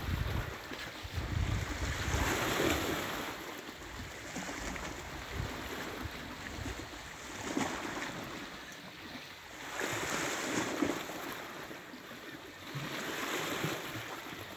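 Sea swell washing against a rocky shore, surging in about four slow swells a few seconds apart. Wind rumbles on the microphone near the start.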